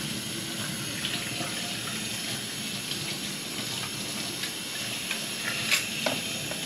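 Water running steadily, with a few light clicks.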